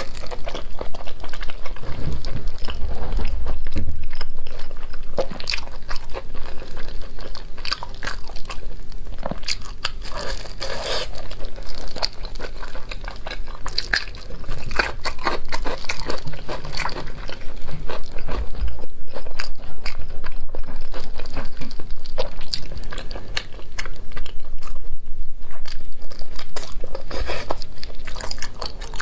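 Close-miked biting and chewing of spicy braised pork, with many sharp crunches.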